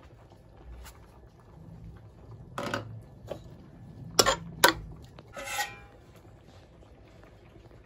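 Metal spoon knocking and scraping against a large metal cooking pot as chicken curry is stirred: a few clinks in the middle, the two sharpest close together, then a short scrape.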